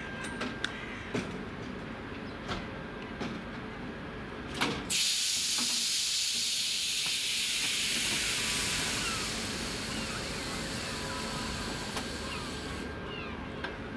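Passenger train coaches rolling slowly to a halt, wheels clicking a few times over rail joints, then a loud hiss of compressed air venting from the train's brakes that starts about five seconds in and cuts off suddenly about eight seconds later.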